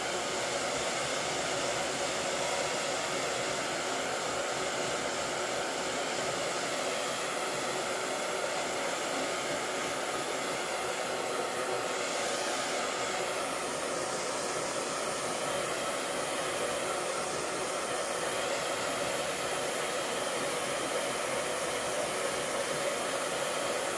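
Handheld hair dryer running steadily, blow-drying a cat's fur, with a slight change in tone about halfway through.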